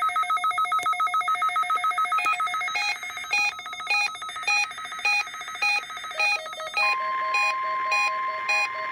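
Electronic alert beeping from a weather-radio receiver: rapid, about six beeps a second, slowing to under two a second about three seconds in. About seven seconds in, the steady 1050 Hz NOAA Weather Radio warning alarm tone starts under the beeps, sounding for a weekly alarm test.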